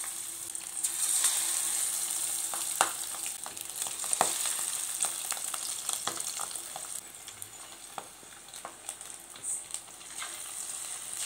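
Masala-coated fish pieces sizzling in hot oil, a steady hiss with sharp pops and spits of oil here and there as more pieces go into the pan.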